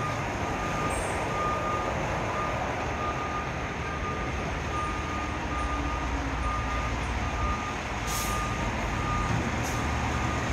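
Pierce Velocity fire engine backing up, its diesel engine running under a steady reversing alarm that beeps about twice a second. Two short hisses of air come near the end.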